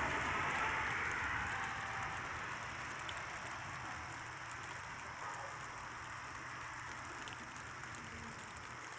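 Rain falling steadily, with a rumble of thunder dying slowly away over the first few seconds.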